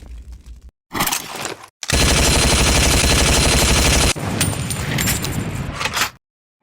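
A string of edited sound-effect clips. A short burst comes about a second in. Then about two seconds of rapid automatic gunfire, followed by scattered sharp shots or hits, and the sound cuts off suddenly near the end.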